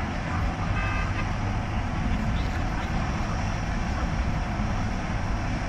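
Steady low rumble of vehicle noise, with a brief short tone about a second in.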